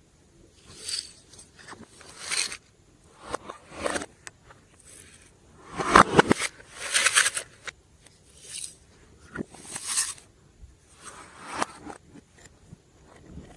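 Glossy slime being squished and stretched by hand, giving short sticky crackling and squelching bursts about once a second, the loudest near the middle.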